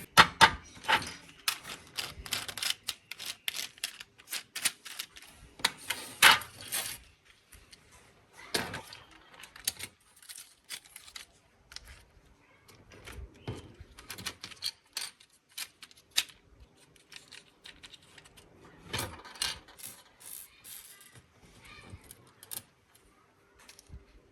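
Hard plastic parts of a toy racing car clicking, tapping and knocking in quick irregular runs as they are handled and taken apart.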